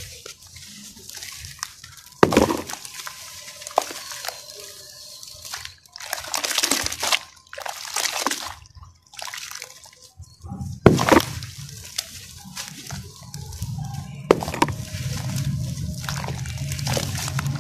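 Hands squeezing and crumbling soaked sand-and-cement lumps in a basin of water: wet sloshing, dripping and squelching, with a few sharp splashes as pieces drop into the water.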